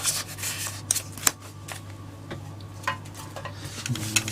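Trading cards being handled and stacked: irregular rustling and sharp little taps and clicks of card stock, over a faint steady low hum.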